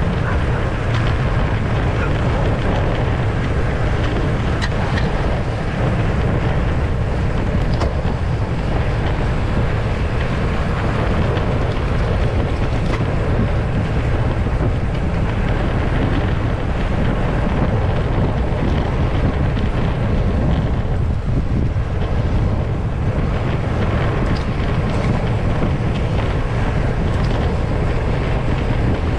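Steady wind noise rushing over the microphone of a camera carried on a road bicycle during a group ride, with a few faint clicks along the way.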